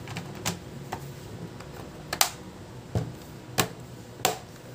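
Plastic clips of a laptop's bottom cover snapping into place as it is pressed shut along its edge: about six sharp, irregular clicks, the loudest a double click a couple of seconds in.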